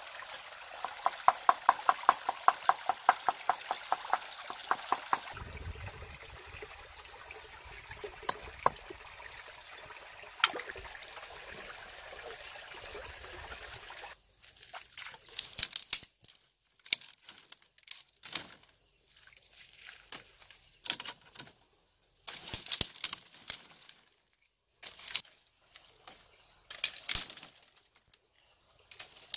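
Shallow stream trickling over rocks, with a quick run of sharp ticks in the first few seconds. From about halfway, uneven splashes and crunches of bare feet wading through shallow water and stepping on gravel.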